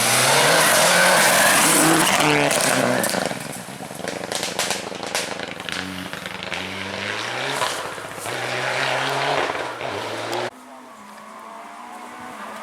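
A rally car passing at speed, its engine rising in pitch and dropping back through several gear changes, loudest in the first few seconds with a rush of tyre and road noise. About ten and a half seconds in it cuts off abruptly, leaving a quieter, more distant car engine.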